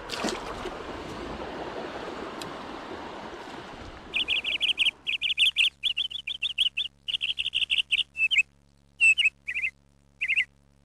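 Creek water rushing steadily for about four seconds, then cut off abruptly. Bird chirping takes over: quick runs of high, clear chirps separated by near-silent pauses.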